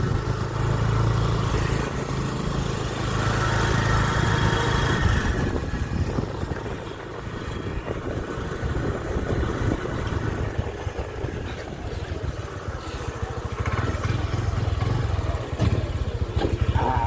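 Motorcycle engine running as the bike is ridden at low speed, quieter through the middle and louder again near the end.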